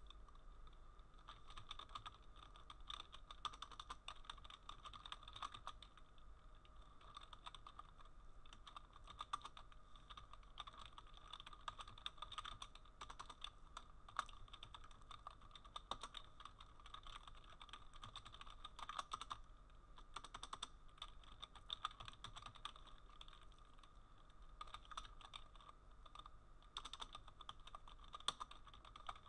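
Faint typing on a computer keyboard: irregular runs of key clicks over a steady low hum.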